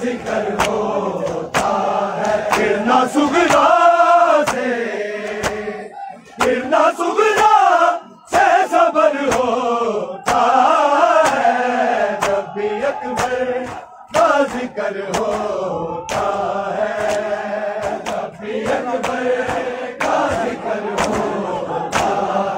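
Noha, a Shia lament, chanted in chorus by a group of men, line by line with short pauses between lines. Sharp, evenly spaced slaps keep a steady beat: chest-beating (matam) by the mourners.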